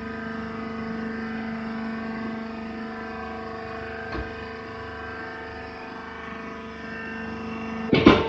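Hydraulic baling press running: a steady, even motor-and-pump hum, with a brief knock about four seconds in and a loud clatter near the end.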